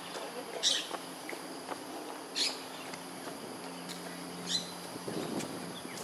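Three short, sharp high-pitched animal chirps, the first under a second in, then about two and a half and four and a half seconds in, over outdoor background noise and a faint steady low hum.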